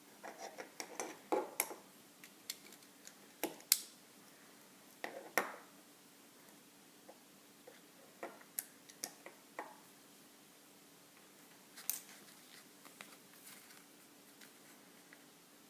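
Lego pieces being handled and pressed together: small plastic clicks and taps in irregular clusters, with a few sharper knocks around the four- and five-second marks and again near twelve seconds.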